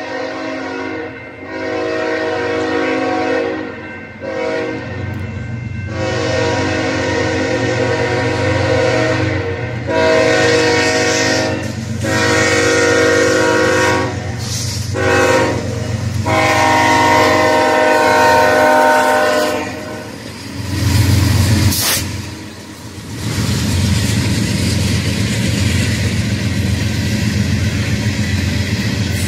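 Freight train locomotive air horn blowing a long series of blasts for about twenty seconds, with one short blast near the middle, as the train approaches the crossing. The locomotives then pass with a loud low rumble and a sharp thump, followed by loaded tank cars rolling by with a steady rumble and clatter of wheels on rail.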